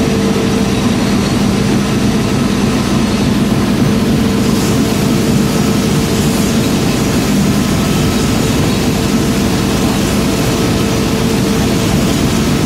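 GFM four-hammer radial forging machine running as it forges a red-hot steel billet: a loud, steady mechanical drone with a constant low hum and a higher hum tone above it. A faint high hiss joins about four seconds in.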